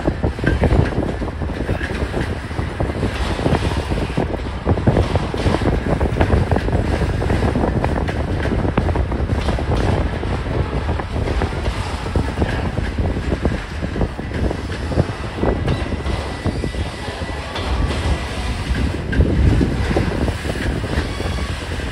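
Freight train of autorack cars rolling past, steel wheels on the rails making a steady rumble with a continuous run of clicks and clacks over the joints.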